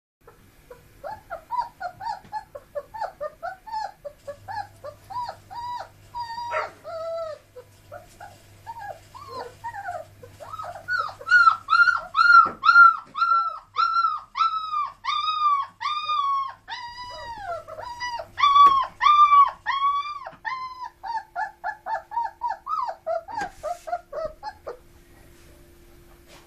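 Three-week-old Dalmatian puppies whining and squealing in a rapid string of short, high-pitched cries, about three or four a second. The cries grow loudest midway, then trail off near the end.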